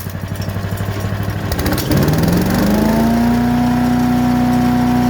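Harbor Freight wood chipper's engine running at low speed, then speeding up about a second and a half in. A rising whine levels off and holds steady as the machine reaches full speed.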